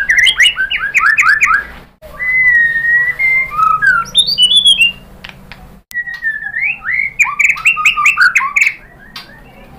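White-rumped shama singing. Fast runs of clear down-slurred whistles alternate with longer held whistles, and twice the song breaks off abruptly for a moment.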